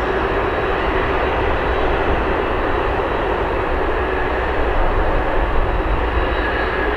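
Jet airliner engines running at high power: a loud, steady rushing noise with a faint steady hum in it.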